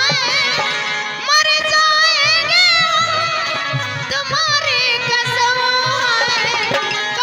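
A woman singing a Bundeli folk song in a wavering, ornamented line, accompanied by held harmonium chords and a steady drum beat.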